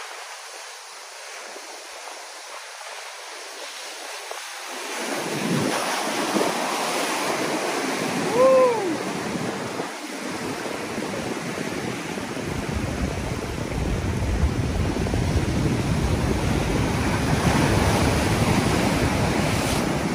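Surf breaking and washing over rocks, with wind on the microphone: fairly quiet for the first few seconds, then building to a steady wash from about five seconds in. A brief pitched cry, rising then falling, stands out about eight seconds in.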